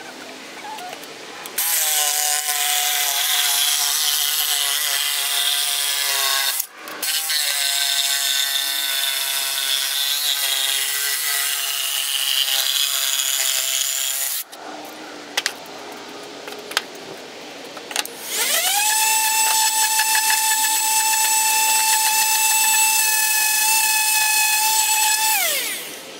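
Electric jigsaw cutting a circle out of a wooden board, its blade buzzing through the wood in two long runs with a brief break between them. After a pause of a few seconds it starts again with a steady whine that winds down just before the end.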